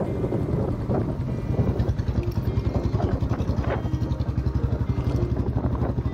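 A motorcycle engine running steadily, with rapid even firing pulses.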